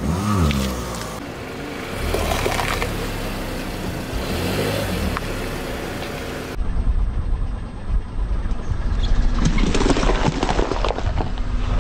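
A car rolling slowly over bell peppers on asphalt: the engine runs with a low rumble under the tyre noise. Near the end there is a cluster of crunching as the peppers break under the tyre.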